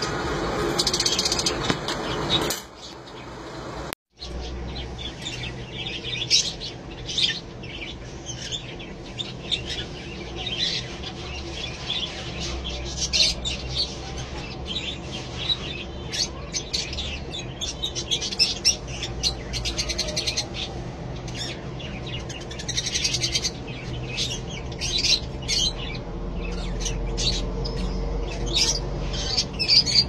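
Caged lovebirds chirping, many short, sharp calls in quick succession, over a steady low hum.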